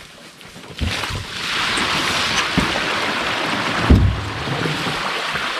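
Steady rushing and sloshing of water, with three dull knocks against a canoe's hull, about a second in, midway and near four seconds, as the old canoe is handled at the water's edge.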